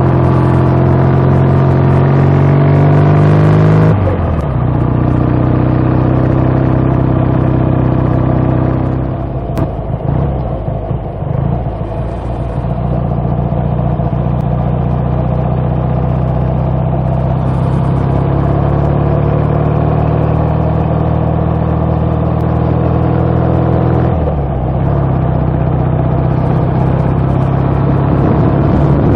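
BSA A65's 650 cc parallel-twin engine running under load as the motorcycle is ridden, its note holding steady between sharp drops in revs about four seconds in and again near the end. Around ten seconds in the engine briefly eases off and wavers before picking up again.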